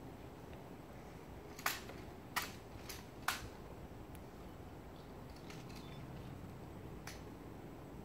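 Ceremonial honor guard's drill during a changing of the guard: four sharp metallic clicks within about two seconds, the third fainter, and one faint click near the end, over quiet outdoor crowd ambience.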